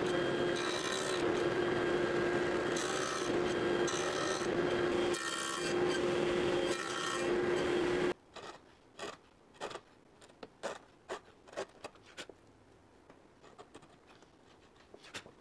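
Table saw running with its blade cutting wood, a steady hum under loud cutting noise. About eight seconds in it gives way abruptly to a quick series of short scraping strokes of a small hand plane shaving wood.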